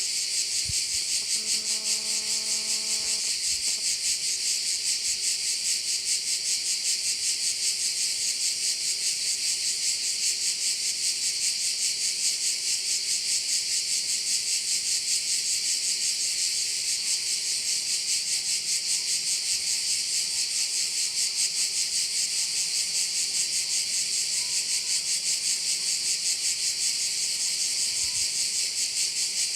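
A dense chorus of singing insects, a continuous high-pitched rapid buzzing that holds steady throughout. A faint steady low hum sits underneath, and a brief faint pitched tone sounds about a second and a half in.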